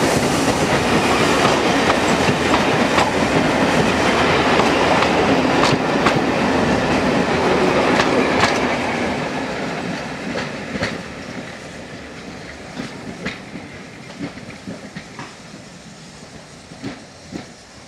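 Steam-hauled passenger train behind a GNR N2 tank engine rolling past at close range, coach wheels clicking over the rail joints. The rumble fades away about halfway through as the train draws off into the distance, leaving fainter clicks.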